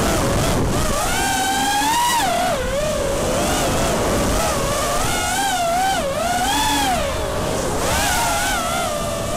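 Armattan F1-5 racing quadcopter's Emax 2205 2300 KV brushless motors and propellers whining under hard flying. The pitch swoops up and down continually with the throttle.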